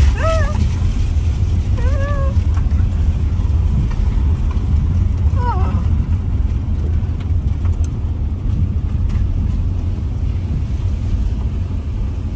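Car driving slowly, heard from inside the cabin: a steady low rumble of engine and tyres on a rough lane. Three short high cries that rise and fall in pitch come in the first six seconds.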